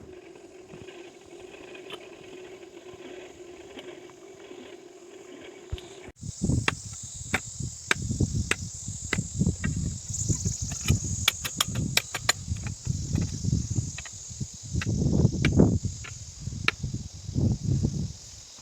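Blacksmith's hammer blows on iron: a string of sharp strikes with a quick run of them around the middle, over a steady high insect-like buzz. A steady low hum fills the first six seconds and cuts off abruptly.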